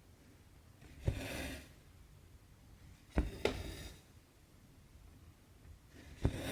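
Needle popping through taut 18-count Aida cloth and cotton thread drawn through with a short rasping swish, three times: a sharp tick then a half-second pull each time, the middle one with a double tick.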